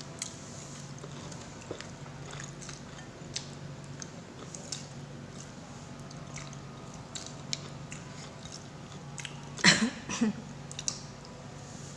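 A person chewing and eating, with small wet clicks and smacks of the mouth, over a steady low hum. About ten seconds in comes a short, louder double burst with a voiced part.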